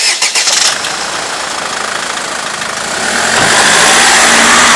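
Vehicle engine running, with a sudden loud clatter at the start and getting louder about three seconds in as it picks up speed.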